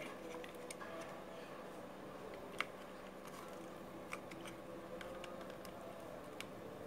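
Faint clicks and light rustling of a small antenna booster unit and its wires being handled, a few separate clicks, the clearest about two and a half seconds in, over a steady low hum.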